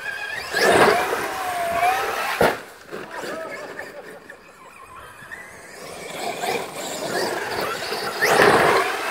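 Traxxas X-Maxx electric RC monster truck driving over dirt, its motor whining, with a sharp knock about two and a half seconds in. Near the end it speeds up, loudest as it charges up a steep bank and leaves the ground.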